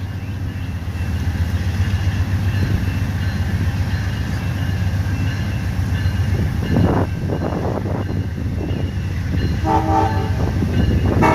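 Approaching passenger train rumbling steadily as it draws into the station, with a short horn blast near the end.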